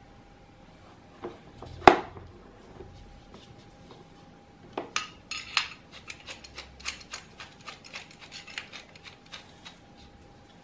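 Hard plastic tool case clattering: one sharp knock about two seconds in as the hammer drill is set down in the case. From about five seconds on comes a run of light clicks and rattles as steel chisel bits are worked out of their clips in the case lid.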